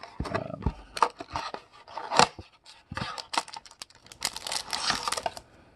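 A cardboard trading-card hanger box being torn and pried open by hand: a run of tearing, scraping and clicking noises, with a thicker stretch of rustling near the end as the wrapped pack inside is worked loose.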